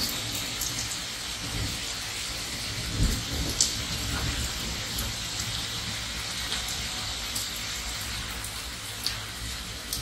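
Steady rain falling, an even hiss with scattered sharper drop taps. A low rumble swells about three seconds in.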